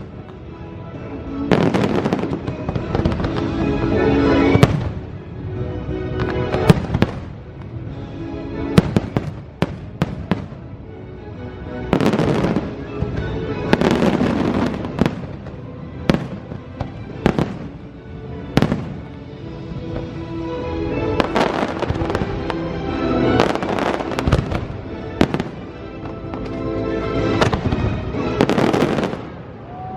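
Fireworks show: sharp bangs and crackling bursts in clusters, over loud music that swells in waves every few seconds.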